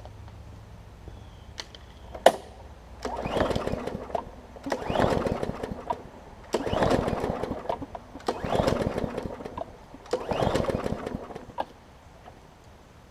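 Push mower engine pull-started five times: each rope pull spins the engine briefly and it dies away without catching. The carburetor is gummed from old gas and needs cleaning. A sharp click comes just before the first pull.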